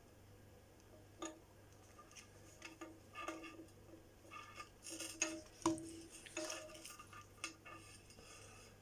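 Faint, scattered light clicks and clinks of small hard items being picked up and set down on a workbench, a dozen or so irregular taps, some with a brief metallic ring. A low steady hum runs underneath.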